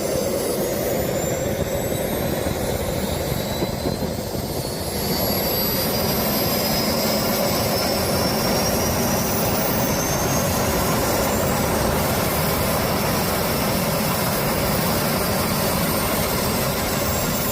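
Jet engine running on a test start: a high turbine whine that climbs slowly over a steady rushing noise, getting a little louder about five seconds in. The engine runs despite a bent mounting bracket and a sheared bolt that point to a past crash.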